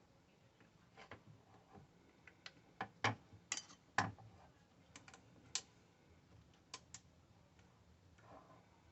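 A run of irregular, sharp clicks and knocks, the loudest two about three and four seconds in, like hard objects being handled and set down.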